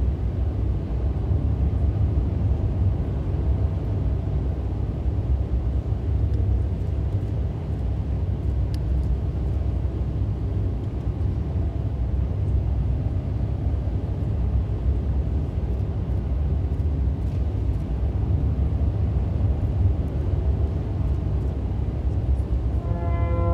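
Steady, deep rumbling drone with a few faint held tones above it, the low ambient score of a live runway performance.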